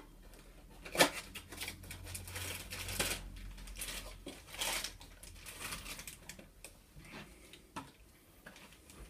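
Rustling and crinkling of packaging as a small cardboard box of 3D glasses is handled and opened, with a sharp click about a second in.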